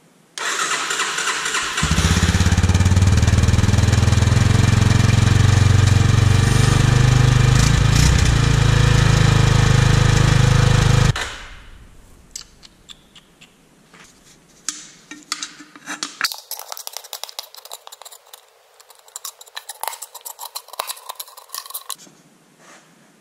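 Yamaha Serow single-cylinder four-stroke engine heard at the silencer. It cranks briefly and catches about two seconds in, runs steadily for about nine seconds, then cuts off suddenly. After that come scattered light clicks and knocks.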